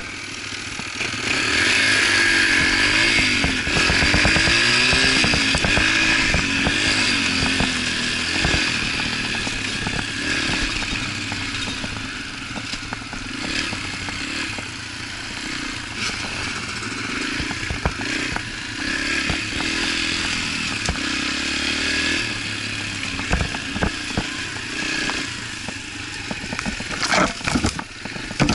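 Yamaha TT-R125 dirt bike's single-cylinder four-stroke engine running under way, heard from the rider's seat, its pitch rising and falling as the throttle is worked. Near the end come several sharp knocks as the bike bounces over rough trail.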